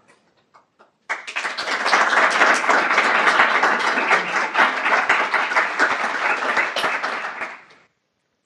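An audience applauding, starting suddenly about a second in and dying away near the end.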